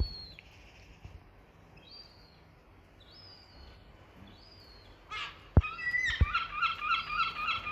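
Seagull chick calling: a few thin, high, falling peeps, then from about six seconds a fast, steady run of begging calls, about four a second. Two dull knocks just before the calls speed up.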